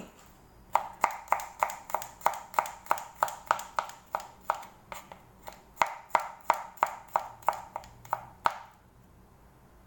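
Kitchen knife chopping garlic cloves on a plastic cutting board: quick, even knife strikes, about three to four a second, with a short pause about halfway through.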